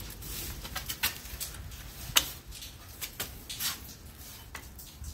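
Sharp metallic clicks and short scrapes as a stiff return spring on a drum brake's shoes is stretched and worked into its hole, the loudest click a little past two seconds in.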